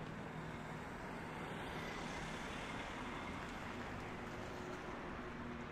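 City street traffic noise: a steady hum of road vehicles, swelling slightly about two to three seconds in as a vehicle goes by.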